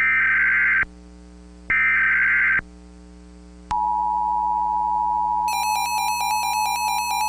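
Emergency Alert System data header: short identical digital buzzy bursts about a second apart, the last of a set of three, followed by the steady two-tone EAS attention signal. A few seconds into the attention tone, a rapid high pulsing beep joins it.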